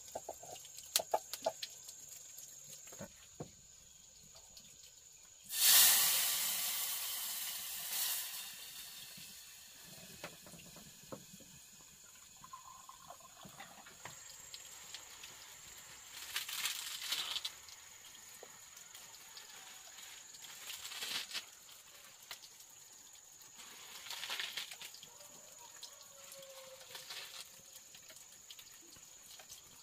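Water splashing in a series of noisy bursts, the loudest starting suddenly about five seconds in and fading over a couple of seconds, with a steady high buzz underneath.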